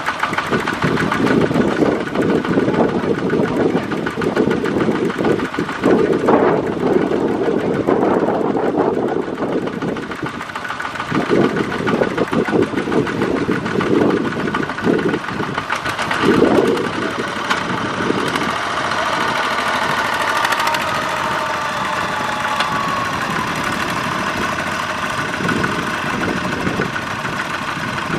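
Single-cylinder diesel engines of two-wheel walking tractors running under load as they pull trailers of rice sacks. The engine noise swells in stretches during the first two-thirds and is steadier near the end.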